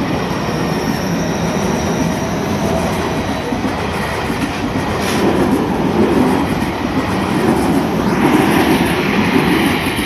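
A Tobu 50000-series electric train pulling out of the station and passing close by over a level crossing: a steady rumble of the cars going by, growing louder in the second half.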